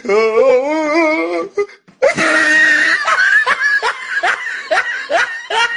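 A person laughing in breathy bursts, about two a second, after a wavering, quavering call that lasts about the first second and a half.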